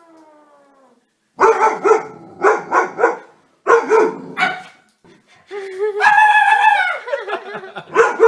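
A dog barking in a run of short, loud barks, then a longer drawn-out cry about six seconds in.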